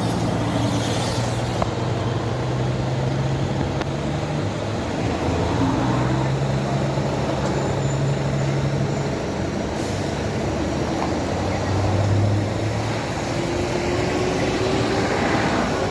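Steady traffic noise: low engine hum from motor vehicles, its pitch shifting every few seconds as vehicles run and pass.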